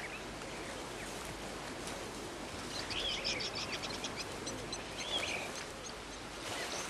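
Small birds chirping over a steady outdoor hiss. A quick run of high twittering notes comes about three seconds in, and another short chirp a second or so later.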